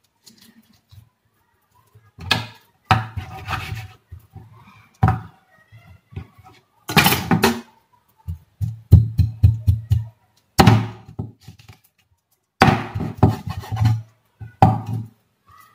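Steel meat cleaver chopping through raw chicken and bone onto a wooden cutting board, separating the tail and back portion. Repeated heavy chops come in irregular clusters, some in quick runs of several blows.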